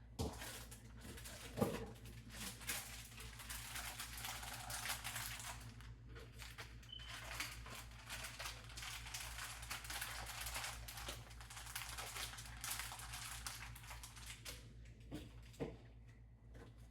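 Plastic packaging and food containers being handled, with steady crinkling and rustling broken by small clicks and taps; the noise dies down near the end. A low steady hum runs underneath.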